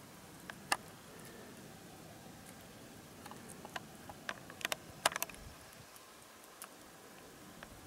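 Quiet background with scattered small clicks and ticks, single ones early on and a quick cluster of several about four to five seconds in.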